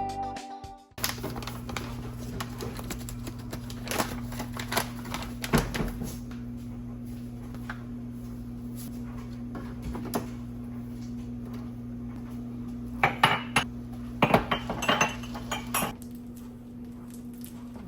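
Dishes and cutlery clinking, a scatter of light knocks and clinks with a cluster near the end, over a steady low hum. Music stops just before.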